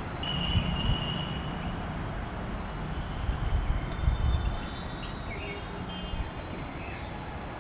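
Steady outdoor background noise, mostly a low rumble, with a few faint thin high tones coming and going.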